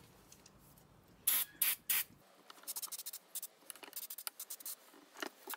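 Aerosol carburettor cleaner sprayed onto a motorcycle carburettor body: three short hissing bursts about a second in, then a run of quick, short spurts.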